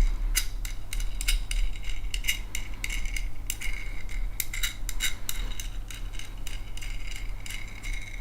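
A steel M10 nut being spun along a threaded rod by hand, with quick irregular metallic clicks and clinks as it and the washers on the rod rattle.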